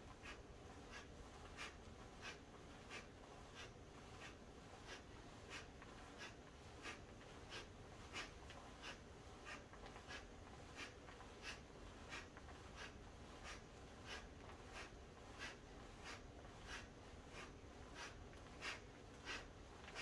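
Faint, quick exhales through the nose, evenly spaced about one every two-thirds of a second, each marking a turn of a seated yoga twist.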